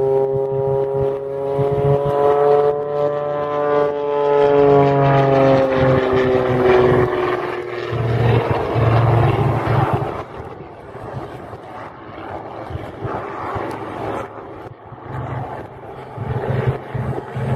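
Aerobatic propeller plane's engine droning with a strong whining tone that rises a little and then sinks over the first several seconds as the plane manoeuvres. From about ten seconds in the engine sound turns quieter and rougher.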